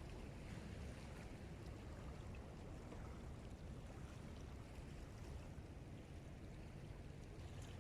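Steady low rumble of wind and sea water at a rocky shoreline, even throughout, with a few faint ticks.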